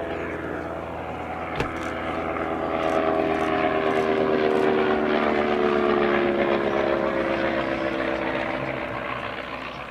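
Sopwith Triplane's Clerget 9B nine-cylinder rotary engine running in flight as the aircraft passes overhead: the engine note grows louder, falls in pitch as it goes by, and fades near the end.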